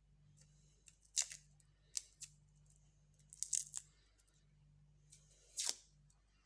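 Papery skin being peeled off a garlic clove by hand: a handful of short, dry crackles and rustles.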